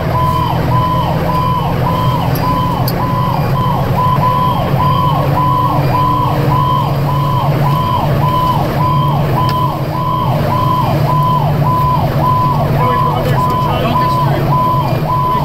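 Fire engine's electronic siren wailing in a fast repeating dip-and-rise cycle, about two cycles a second, heard from inside the cab of a 2010 Pierce Arrow XT fire engine responding to a call. Under it is the truck's steady low engine and road drone.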